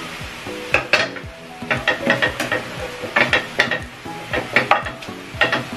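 A plastic spoon scraping and clacking against a non-stick frying pan in about five quick bursts while bitter gourd and egg are stir-fried, over a steady sizzle.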